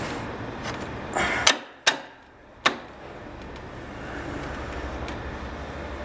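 Steel axle bolt being pushed through a scooter's front wheel hub and fork: a short scrape, then three sharp metallic clicks between about a second and a half and three seconds in, over a steady background hum.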